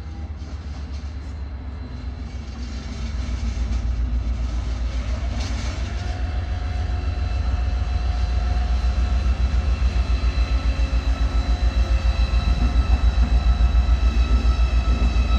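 A red DB locomotive running. A low, fast-pulsing throb grows louder over the first few seconds, and a steady whine rises in and then holds about five and a half seconds in.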